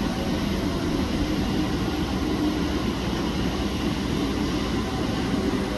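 Gulfstream G650ER business jet taxiing with its two Rolls-Royce BR725 turbofans at idle, giving a steady, even engine noise.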